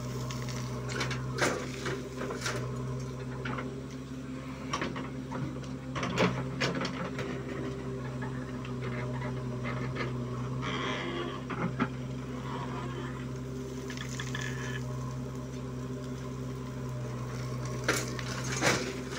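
JCB 3DX backhoe loader's diesel engine running steadily as it digs soil and loads it into a tractor trolley. Several sharp clanks and knocks come from the working bucket and arm, two close together near the end.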